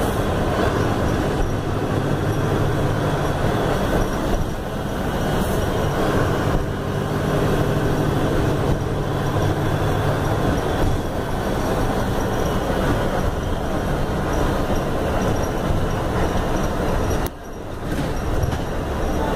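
Cabin sound of a Neobus Mega Plus city bus on a Mercedes-Benz OF-1519 BlueTec 5 chassis under way: its diesel engine running with steady road noise. Near the end the sound drops sharply for a moment, then picks up again.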